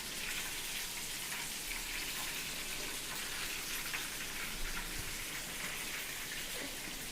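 Flour-coated chicken drumsticks deep-frying in hot oil: a steady sizzle with scattered small crackles, the chicken nearly done and golden brown.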